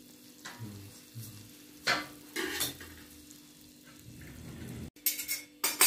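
Crisp baked phyllo (baklava yufka) börek crust crackling and crunching under a knife, in a few short strokes with a louder cluster near the end.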